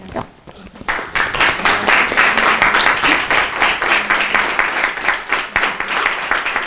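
Crowd applauding; the clapping starts about a second in and holds steady.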